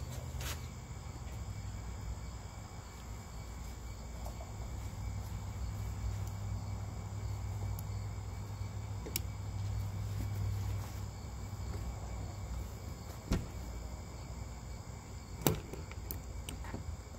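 Crickets chirping steadily over a low, steady hum, with a few isolated sharp clicks, the two loudest near the end.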